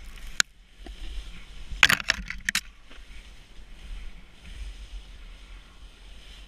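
Snowboard sliding and scraping over snow, with a steady low rumble of wind on the helmet camera. A sharp click comes under a second in, and a quick cluster of cracks and knocks about two seconds in, as the board runs through twigs and brush.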